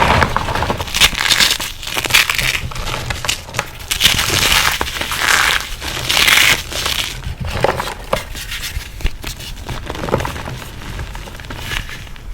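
Reformed gym chalk and cornstarch crunchies being crushed, crunching and crumbling in repeated bursts of dense crackle. The crunches thin to scattered sharper cracks in the second half.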